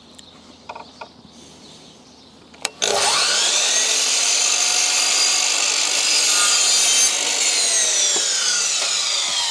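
Electric mitre saw starting about three seconds in with a rising whine, its blade cutting a mitre through a wooden dado rail, then the motor's pitch falling slowly as the blade winds down.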